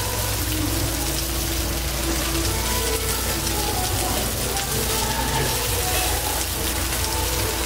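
Chicken pieces sizzling on a hot flat griddle, with metal tongs and kitchen scissors clicking as the meat is lifted and cut. A steady low hum runs underneath.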